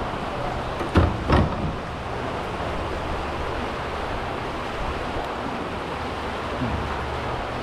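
Steady wind buffeting the microphone and choppy water lapping around a kayak, with two sharp knocks close together about a second in.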